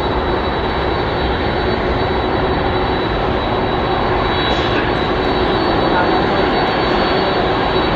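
Boeing 747-400 freighter's jet engines running at taxi power: a steady jet rumble with a constant high whine over it.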